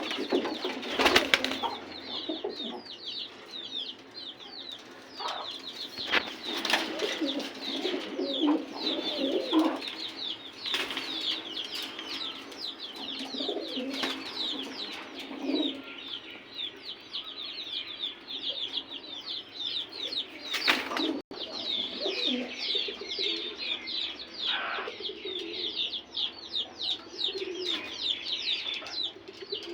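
Pigeons cooing in low bursts, with wings flapping in a few sharp strokes. A steady stream of high, quick chirps from small birds runs throughout.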